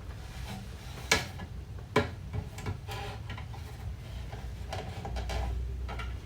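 Kitchen objects being handled: two sharp clicks or knocks about one and two seconds in, then lighter scattered clicks and taps over a steady low hum.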